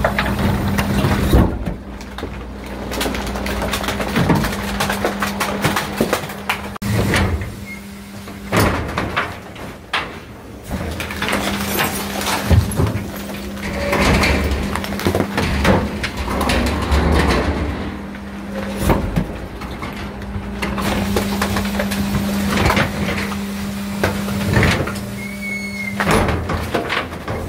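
Electric garbage truck's compactor packing rubbish in the hopper: a steady hum from its hydraulic drive under crunching, crackling plastic bags and repeated sharp knocks of the packer mechanism.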